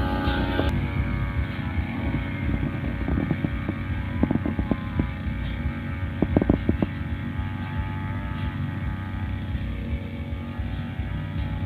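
Riu two-stroke brushcutter engine running steadily, with two clusters of sharp clicks about four and six and a half seconds in.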